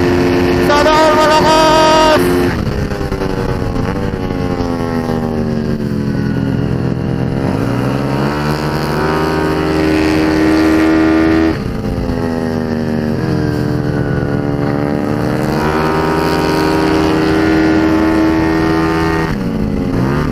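Yamaha Mio scooter's race-tuned engine at full throttle on a track, heard onboard. It is held at high revs, drops sharply as the throttle closes about two seconds in, then falls and rises again through the corners, with another sudden drop near the middle and again near the end.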